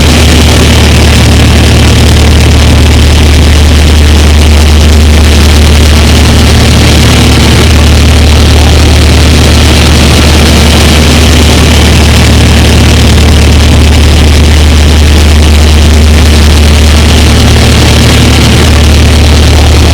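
Heavy drilling-rig machinery on a barge running steadily at the start of drilling: a loud, constant low engine hum.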